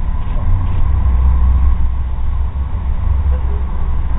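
TGV high-speed train running at speed, heard inside the passenger coach as a steady low rumble with a faint steady whine above it.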